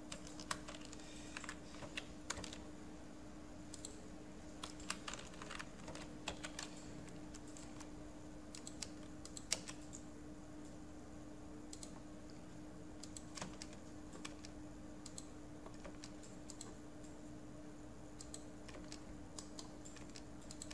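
Sparse, irregular keystrokes and clicks from a computer keyboard and mouse as commands are entered, over a faint steady hum.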